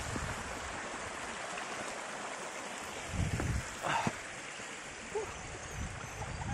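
Creek water rushing steadily over rocks, with wind buffeting the microphone about three seconds in and a short high-pitched sound just after.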